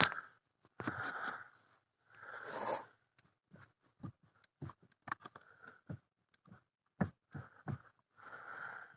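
Irregular light clicks and knocks from the splined joint of the Lada XRAY Cross steering shaft as it is moved: play in the splines, because the clamp nut on the joint was left loose.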